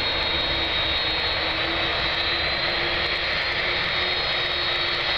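Jet engines of an Airbus A300B4-605R airliner running at taxi power close by: a steady rumble with a steady high-pitched whine over it.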